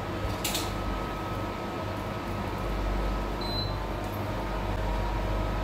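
Steady hum of a running electric fan with a faint steady high tone, and one light click about half a second in.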